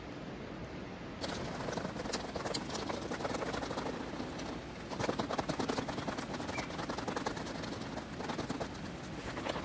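Lettuce and salad rattling and rustling inside a closed plastic salad tub as it is shaken to mix in the dressing: quick, irregular patter of light clicks, starting about a second in.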